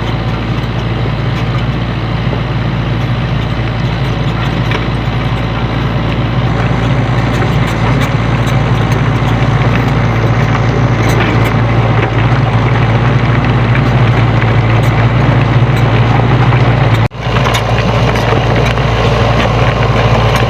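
SANY SY75C mini excavator's diesel engine running steadily with a deep, even drone. It cuts out for an instant near the end and picks straight up again.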